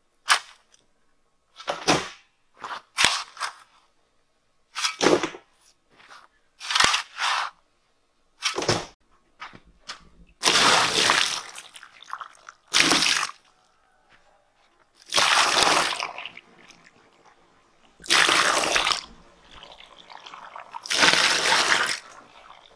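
Steel shovel scraping and chopping into hard, dry, powdery dirt in a string of short strokes. Later come several longer scraping rushes, each about a second long, a few seconds apart.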